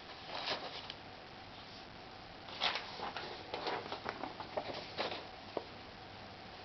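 Irregular rustling and light clicks of hands handling things, in short clusters with quieter gaps between.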